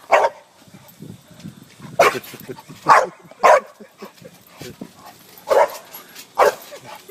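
Bulldog barking: about six short, loud barks at irregular intervals, with quieter low sounds between them.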